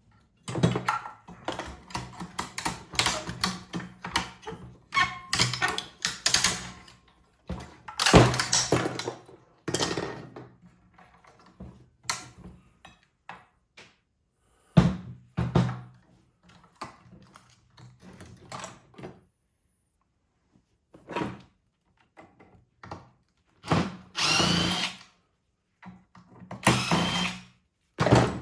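Power drill-driver running in short, repeated bursts with clunks between them, driving screws out during a teardown.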